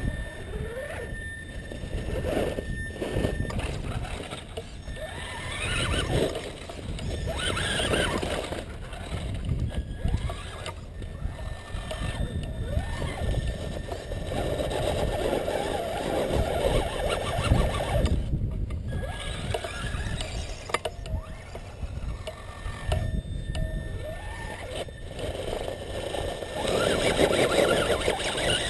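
Axial Wraith RC rock crawler's 27-turn brushed electric motor and geared drivetrain whining, rising and falling in pitch with the throttle as it crawls over rocks. A low rumble of wind on the microphone runs underneath.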